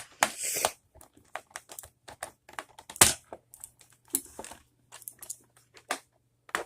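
Screwdriver driving a small screw into the plastic case of a membrane keyboard: irregular clicks and scrapes of the tool and the plastic, with one sharper click about three seconds in.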